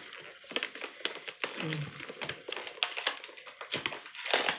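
Food packaging crinkling as it is handled and opened: irregular crackles throughout, with a louder rustle near the end.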